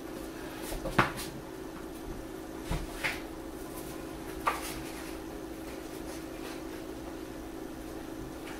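A few short, light knocks and taps in the first half, the loudest about a second in, as a plastic glue bottle is set down on the table and paper pieces are handled; a steady low hum runs underneath.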